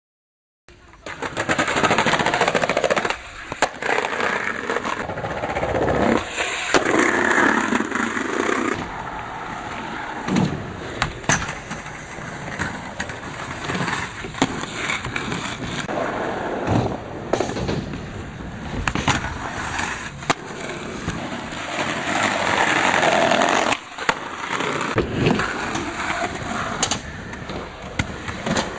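Skateboard wheels rolling over concrete skatepark ramps, with sharp clacks and knocks of the board hitting the ground and ramp edges now and then.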